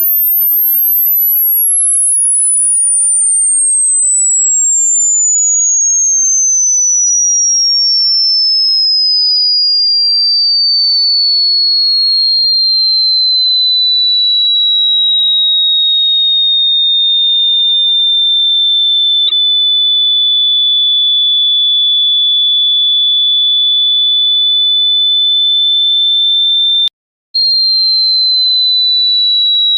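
A single pure electronic tone, used as a ringtone, that glides slowly down from a very high pitch and then holds steady at a high pitch. There is a faint click about nineteen seconds in. It cuts out for a moment about twenty-seven seconds in and comes back slightly higher, drifting down again.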